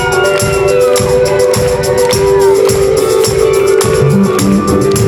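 Indie rock band playing live, with held guitar notes over a steady drum beat and tambourine.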